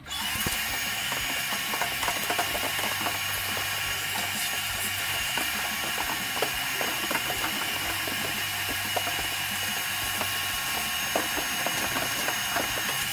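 Shop vacuum switched on and running steadily with a high motor whine, sucking sawdust out of a table saw's dust catch; many small ticks and rattles of chips and debris being pulled into the hose.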